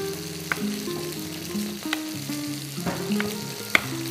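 Chef's knife chopping tomatoes on a wooden cutting board: a few separate sharp chops about a second apart, the loudest near the end. Background music with a simple stepping melody plays throughout over a steady hiss.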